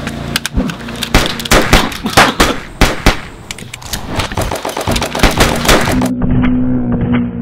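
Movie-style handgun sound effects, many shots in quick volleys, over dramatic background music. About six seconds in the sound turns muffled, with the music's held notes and further hits still going under it.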